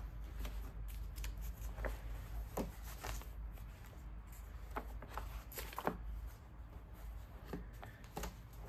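Paperback book pages being leafed through and handled: irregular soft papery rustles and flicks, over a low steady room rumble.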